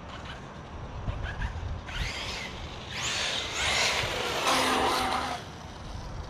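Castle 1717 sensored brushless motor of a 6S Arrma Krajave EXB RC car whining as it accelerates, with tyre hiss on the wet road. The pitch sweeps up and down about two seconds in, it is loudest from about three to five and a half seconds, then it fades.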